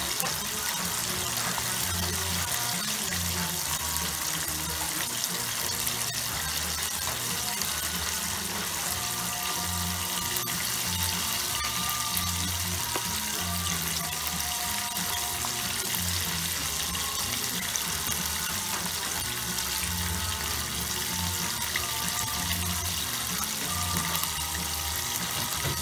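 Chicken deep-frying in hot oil in an aluminium pot on a gas stove: a steady sizzling hiss, with music underneath.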